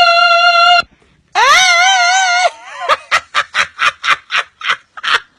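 A girl's high, shrill singing voice holds a long note, then breaks into a wavering wail that is likened to a fire-engine siren. Rapid bursts of laughter follow, about four a second.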